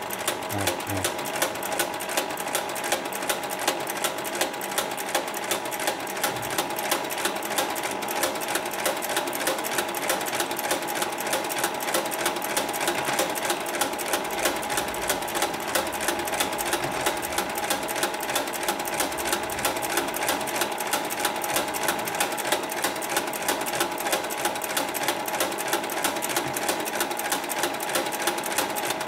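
Hightex industrial zigzag sewing machine running steadily, its needle clattering in a fast, even rhythm over a steady whine as it stitches a cord border onto a net.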